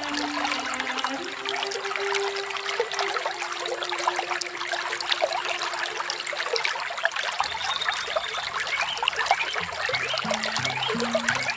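Small waterfall trickling and splashing steadily. Soft background music plays underneath: low held notes in the first half, then a low melody of stepping notes starting near the end.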